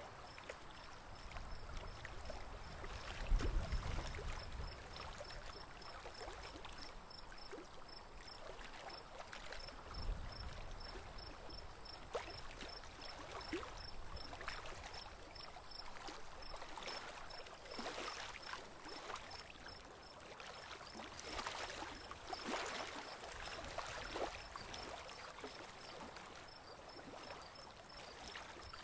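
Gentle trickling and lapping of water around a small, engine-less boat on calm water, with scattered small splashes. A low bump about three seconds in and another about ten seconds in.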